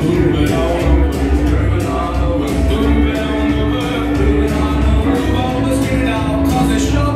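Dance music: a song with a singer over a steady beat.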